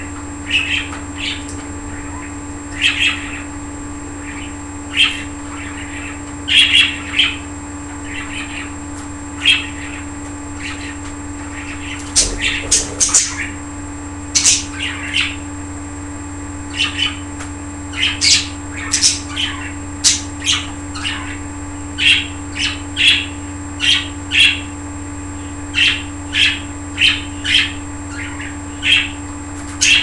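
Pet budgerigars chirping in short, sharp calls, roughly one every second or two and coming more often in the second half, with a small cluster of louder squawky calls about twelve seconds in.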